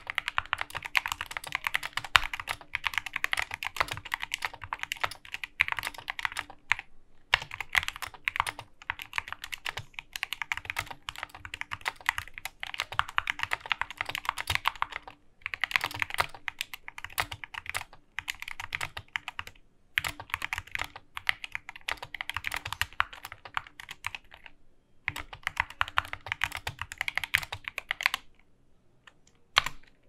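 Fast typing on an Epomaker SK64S mechanical keyboard with lubed Gateron Black linear switches: a quick, steady run of keystrokes. Brief pauses come every few seconds, with a longer one near the end.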